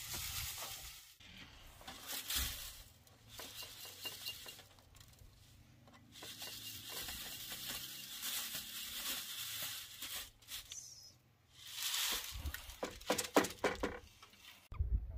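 Crushed grain being shaken and swirled in a wooden-rimmed wire-mesh sieve: a hissing, rustling sift that stops and starts, with a few knocks near the end as the sieve is handled.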